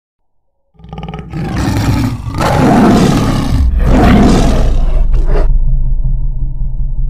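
Tiger roar: a deep roar that swells twice and breaks off. A low rumble trails on after it and slowly fades.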